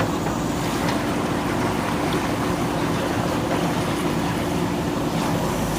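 JCB backhoe loader's diesel engine running steadily, a constant hum with no change in pitch or level.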